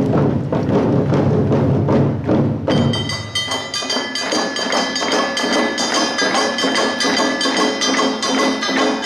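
Awa odori festival band playing live: deep taiko drums under quick percussion. About three seconds in the sound changes abruptly: the deep drums drop out, leaving quick strokes with high ringing tones.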